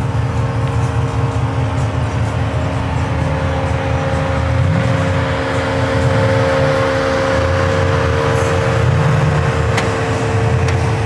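Car engine running steadily, its sound mostly low-pitched.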